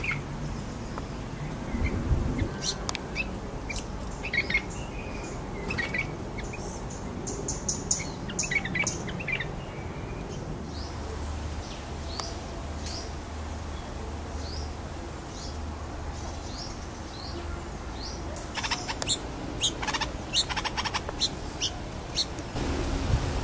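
Red-vented bulbul fledgling calling with short, high chirps. They come in clusters about two to nine seconds in and again about eighteen to twenty-one seconds in, with single chirps in between.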